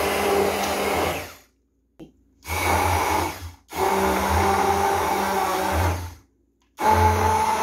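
Lenoxx 3-in-1 handheld immersion blender (600 W) running in a cup of thick smoothie, its motor giving a steady whine over a low hum. It runs in spurts, stopping and starting again twice with short silent breaks.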